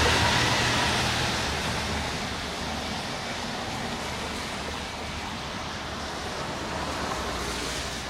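A Keikyu electric train passing by and moving away, its rumble dying down over the first two seconds. After that only a steady hiss remains.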